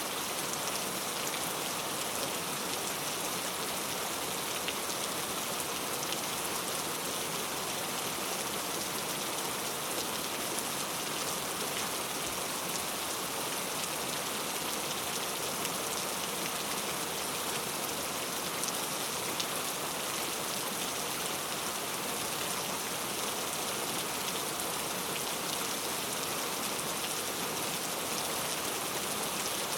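Steady rain falling, a constant even hiss with many small drop taps.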